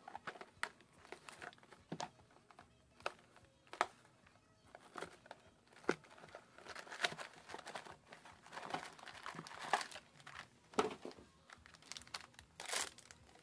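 Foil trading-card booster pack wrappers crinkling and cards being handled, an irregular string of sharp crackles and clicks.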